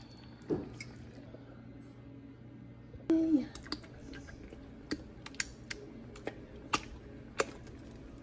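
Upturned metal can knocked and tapped against the rim of a frying pan to shake condensed soup out: a louder clattering knock about three seconds in, then a string of sharp, irregular taps, over a steady low hum.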